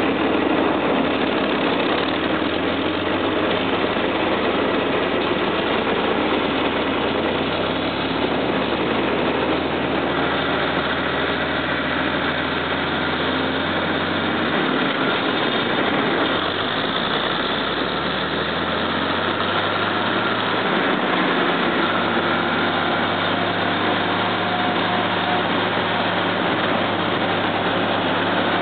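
John Deere 4020's 404-cubic-inch six-cylinder diesel engine running as the tractor is driven. The engine note dips about halfway through and then climbs back up.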